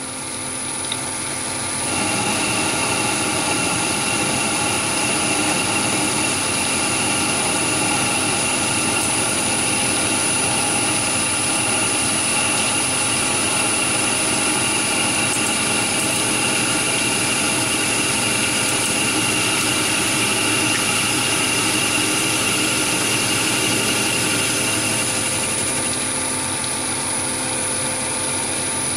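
Chinese mini lathe running while its motor-driven compound slide feeds the cutting tool along a long taper in mild steel. The cutting noise comes in about two seconds in, holds steady with a high whine over the machine's running, and eases off near the end.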